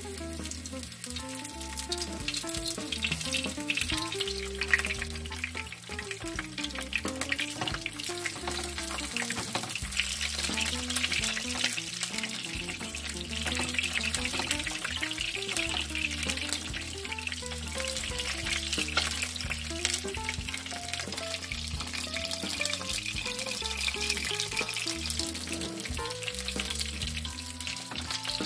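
Floured shrimp shallow-frying in oil in a square tamagoyaki pan: a steady, dense sizzle and crackle that fills out after the first couple of seconds as more pieces go in. Light background music plays underneath.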